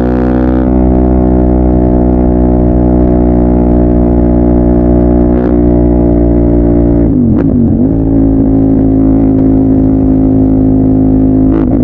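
CFMOTO 800MT's parallel-twin engine running through a Yoshimura carbon-fibre full-system exhaust, held at steady revs. Its pitch briefly dips and comes back about seven seconds in and again near the end.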